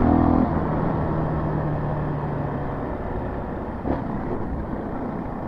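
Dirt bike engine running while riding, holding a steady note for the first few seconds, with a single sharp knock just before four seconds in.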